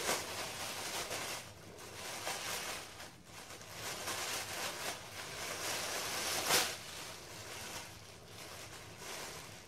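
Tissue-paper gift wrapping rustling and crinkling as it is pulled open by hand, with one sharper crackle about six and a half seconds in.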